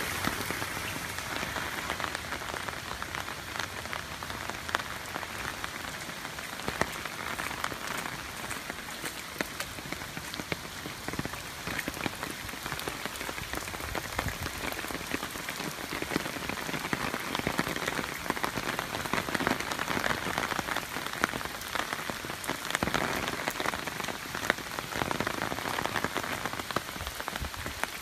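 Typhoon rain falling hard on wet pavement and a puddle: a steady hiss dotted with many sharp drop impacts.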